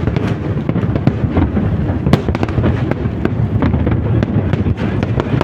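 Fireworks going off in quick succession: a constant run of sharp cracks and bangs over a low rumble.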